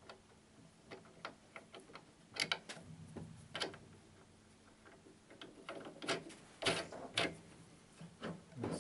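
Irregular light clicks and knocks, about a dozen, from hands working on the action of an upright piano from around 1920 inside its open case. These are small wooden and metal parts tapping and clicking as they are handled.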